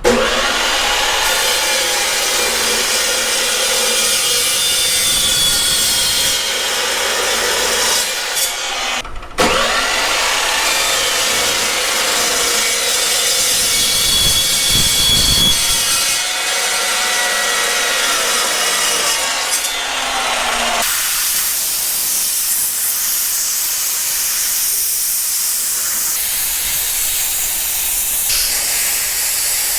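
Power saw cutting steel plate, a continuous grinding rush with a motor whine that drifts up and down in pitch under load. After about twenty seconds the whine drops away and a steady hiss carries on.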